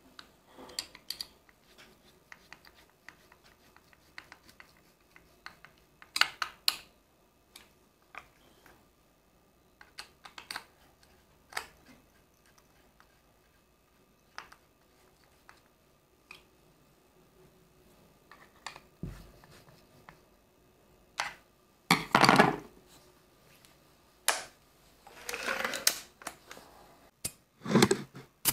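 Scattered clicks, taps and scrapes of a Gamo Shadow 1000 air rifle and a screwdriver being handled on a wooden table during reassembly. There is a louder clatter about 22 seconds in, a longer scraping noise around 25 seconds, and a quick run of knocks near the end.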